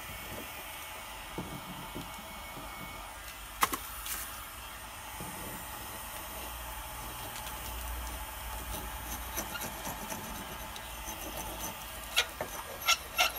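2000 W electric heat gun running steadily on its lower setting, its fan blowing hot air, while a metal scraper lifts softened paint from the wooden sill. Sharp clicks of the scraper on the wood, one loud one about four seconds in and a few more near the end.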